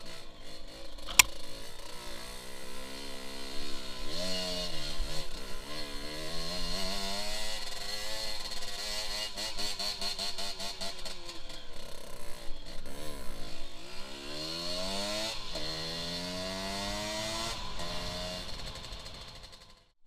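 Yamaha DT 125 two-stroke single-cylinder engine heard on board while the dirt bike is ridden over rough ground, its revs rising and falling again and again as the rider opens and closes the throttle. There is a sharp knock about a second in, and the sound fades out near the end.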